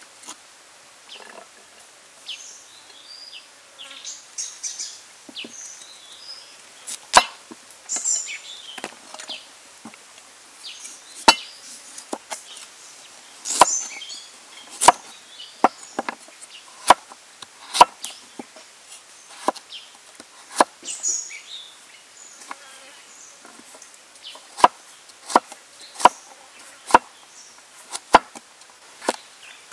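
Large cleaver-style kitchen knife chopping carrot on a wooden board: sharp, irregular knocks of the blade striking the wood, roughly one a second. Faint high chirps come between the chops.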